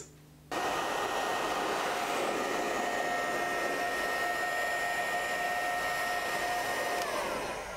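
Electric heat gun blowing steadily, with a fan-motor whine, as it heats the rear wheel-arch lip so the steel can be rolled without the paint cracking. It starts suddenly about half a second in, and near the end the whine drops in pitch.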